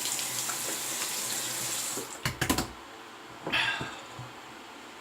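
Tap water running into a sink, likely a post-shave rinse, which stops about two seconds in. A few quick knocks follow, and then one brief splash or scrape.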